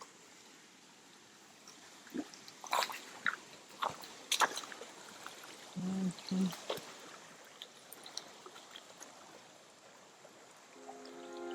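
Faint steady rush of a forest stream, with scattered sharp clicks and knocks for a few seconds in the middle. Music fades in near the end.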